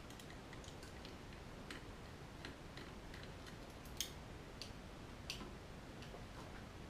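Faint, scattered small clicks and ticks of the plastic underframe and bogie parts of a Heljan O gauge Class 45 model locomotive being handled and worked at by hand, the sharpest click about four seconds in.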